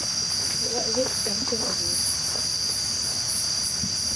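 Night insect chorus: a steady high-pitched trill with a faster pulsing chirp above it.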